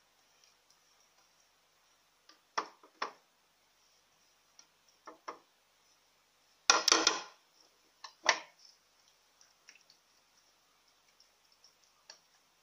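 Kitchen dishes being handled and set down: a few separate knocks and clinks, loudest in a short clatter about halfway through.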